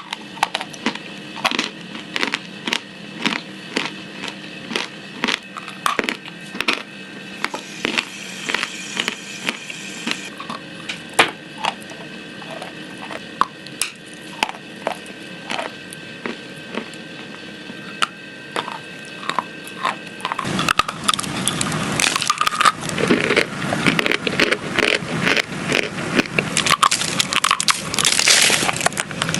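A person eating crunchy food: sharp crunches about twice a second, turning into denser, louder crunching about two-thirds of the way through.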